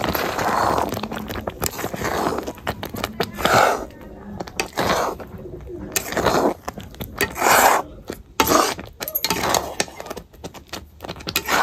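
Thick milk-and-vermicelli kheer (seviyan) boiling in a kadai, big bubbles bursting with soft plops every second or so. A steel ladle scrapes and clicks against the pan.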